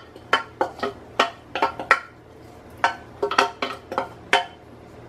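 Sharp metallic clinks and knocks of a metal saucepan against a cooking pot as soaked grated coconut is emptied into the pot: about a dozen clinks in two bursts, with a pause of about a second between them.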